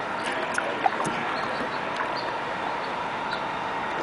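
Steady water noise from a small boat moving along a canal, with a few sharp knocks in the first second or so.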